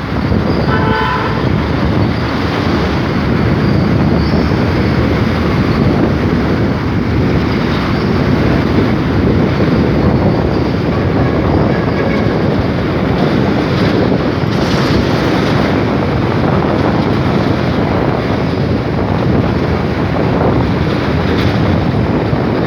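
Steady running noise of a vehicle moving along the road, engine and road noise together, with a brief high tone about a second in.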